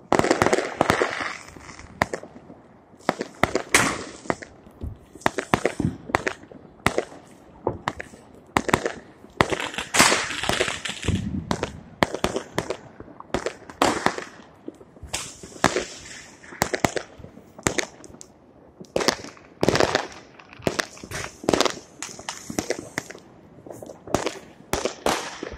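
Fireworks going off: a stream of irregular bangs and pops, sometimes several a second, with crackling after some bursts. The loudest bangs come right at the start and about ten seconds in.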